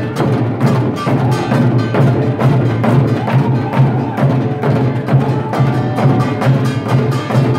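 An ensemble of Korean buk barrel drums beaten with sticks in unison, in a fast, even, driving rhythm.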